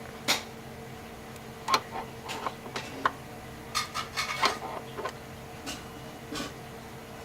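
Irregular light clicks and knocks of metal parts being handled as a steering-wheel hub is fitted and centred on the steering shaft, over a steady low hum.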